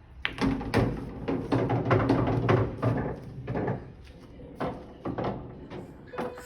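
Pool balls clacking together and knocking against the table after a cue shot, with many sharp clicks and a low rolling rumble, thinning out after about three seconds.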